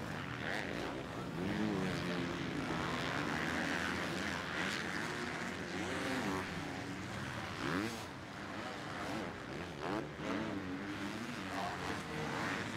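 250cc four-stroke motocross bikes racing, their engines revving up and down through the gears, with a few sharp rising sweeps as riders accelerate.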